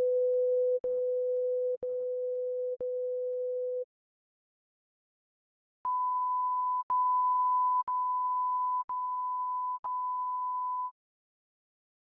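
Pure sine test tones from a DVD's audio frequency response check, stepping through the speaker channels. A steady 500 Hz tone runs in one-second steps, each slightly louder or quieter, with a faint click at each change, and stops about four seconds in. After a two-second gap, a 1 kHz tone plays in five one-second steps and ends about a second before the close.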